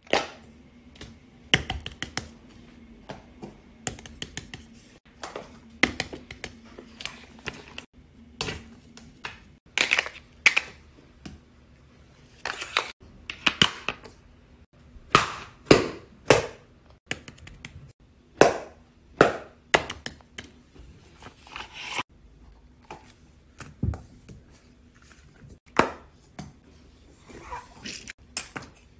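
Fidget toys being handled and played with: an irregular run of sharp clicks, taps and snaps, some followed by brief rustling, over a faint steady hum.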